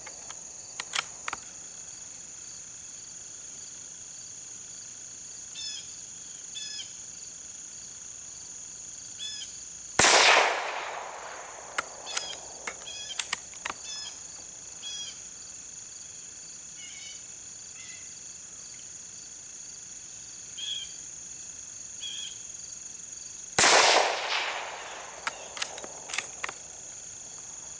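Two shots from a Savage Model 93R bolt-action rifle chambered in .17 HMR, about thirteen seconds apart, each with a short decaying echo. Each shot is followed a couple of seconds later by a run of sharp metallic clicks as the bolt is worked to chamber the next round.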